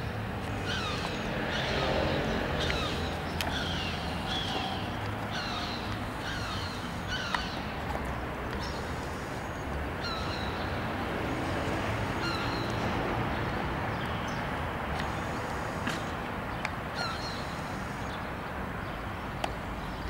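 Gulls calling again and again, a string of short falling cries, over a steady low background rumble.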